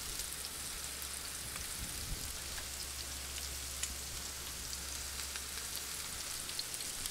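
Flour-and-Parmesan-dredged chicken breast pieces sizzling in oil and bacon grease on a Blackstone flat-top griddle, a steady crackling hiss with a low hum underneath.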